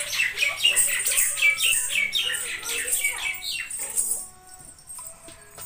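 Heavy ghungroo anklets, clusters of small metal bells, jingling with each step of a walk in a quick, steady rhythm of several shakes a second. The jingling fades out about four seconds in.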